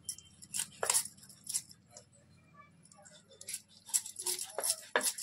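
Irregular sharp clinks and scrapes of a knife and metal utensils, about a dozen strokes, as a lapchi (padhina) fish is cut and cleaned.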